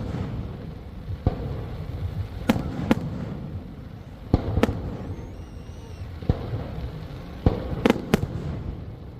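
Fireworks going off: about nine sharp bangs at uneven intervals, some close together in pairs, over a continuous low rumble of more distant bursts.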